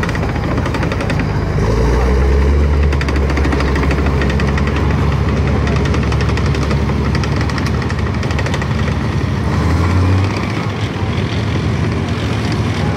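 FV180 Combat Engineer Tractor on the move: its diesel engine running under load and its steel tracks clattering steadily. The engine note grows heavier about two seconds in and eases off about ten seconds in.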